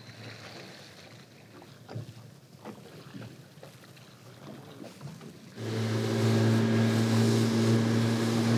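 Quiet at first with a few faint knocks. About two-thirds of the way in, a boat's engine comes in suddenly, running loud and steady with a low hum and the rush of wind and water as the boat gets under way to a new spot.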